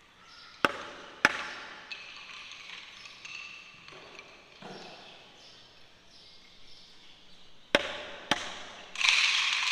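Sharp knocks echoing around a large hall: two about a second in and two more near the end. A louder rush of noise follows near the end.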